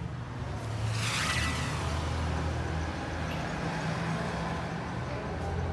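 Steady low rumble of road traffic, with a rushing sound that sweeps down in pitch about a second in, as of a vehicle passing close by.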